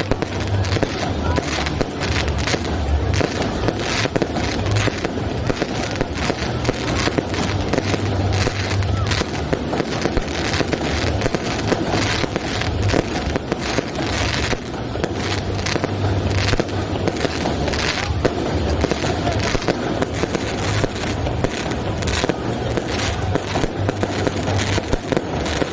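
Aerial fireworks display going off in a continuous barrage: many sharp bangs and crackles a second over a steady deep booming.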